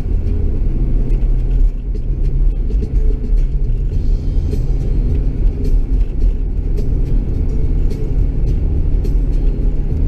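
Steady low rumble of a car in motion, heard from inside the cabin as it drives down a steep hill.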